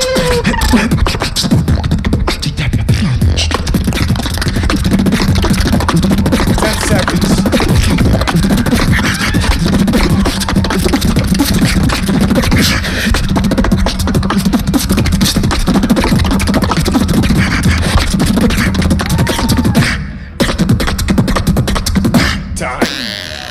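Live beatboxing into a stage microphone: a fast, dense run of percussive hits and clicks over a steady deep bass tone. It cuts out suddenly about 20 seconds in, comes back for a few more hits, and stops near the end.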